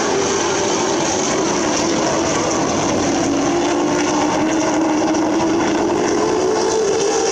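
A pack of late model stock cars racing on an oval short track, their engines running loud and steady. The engine note dips about halfway through and climbs again near the end.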